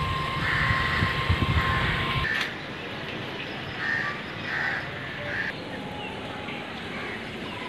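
Passenger train coaches rolling past, with a low rumble, irregular knocks of the wheels over the rail joints and a steady high tone. The sound stops abruptly a little over two seconds in, leaving a quieter outdoor background with a few short high calls.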